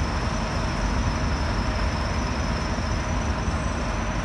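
An R179 subway train runs away along the elevated steel structure, making a steady low rumble with a thin high tone over it.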